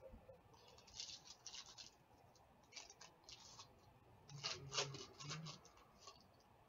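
Foil wrapper of an Upper Deck hockey card pack crinkling and tearing as it is pulled open by hand, in a few short, faint bursts.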